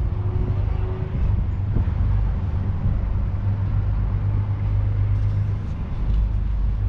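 John Deere 6R 195's 6.8-litre six-cylinder diesel engine running steadily with a deep, even drone.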